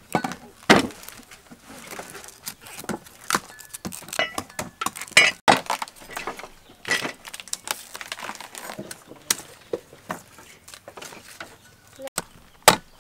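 Irregular crisp cracks, snaps and knocks of a cleaver chopping into a fibrous palm stem on a wooden chopping block, with the stem's layers being split and torn apart.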